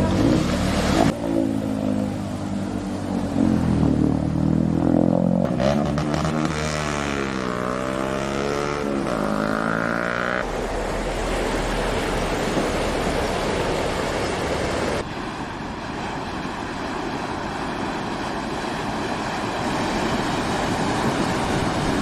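Motorcycle engines revving up and down as the bikes ride through deep floodwater. After about ten seconds this gives way to the steady rushing splash of cars ploughing through the flooded road.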